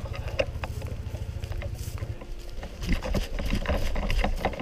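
Footsteps crunching over woodland leaf litter, with kit knocking, from about halfway in. Before that, a low, rapid throbbing that stops about two seconds in.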